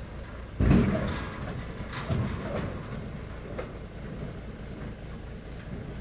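Heavy diesel truck running low and steady, with a loud clunk about half a second in that dies away over a second, then a few lighter knocks.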